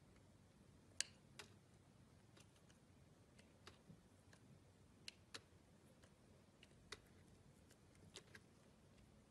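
Faint, irregular crackles and snaps, about a dozen in all, as a brittle white shell is cracked and peeled apart by fingers. The sharpest snap comes about a second in.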